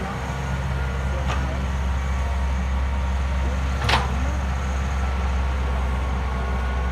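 Hitachi EX120 excavator's diesel engine running steadily under load, with a faint click just over a second in and a sharp metallic clank about four seconds in.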